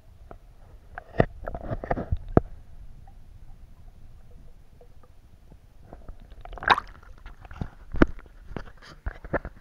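Water heard from inside a submerged camera's waterproof housing: a muffled low rumble and gurgling, broken by a scattering of sharp knocks and clicks, clustered in the first couple of seconds and again in the last few.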